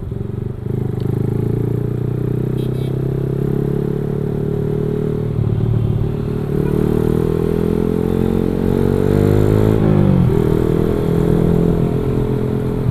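Motorcycle engine running under way, steady at first, then its pitch climbs slowly for a few seconds and drops suddenly near the end.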